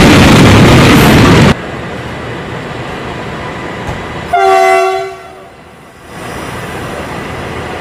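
A passenger train rushes past close by, the rumble of its coaches cutting off abruptly about a second and a half in. About four seconds in, a CC300 diesel locomotive sounds one loud horn blast about a second long.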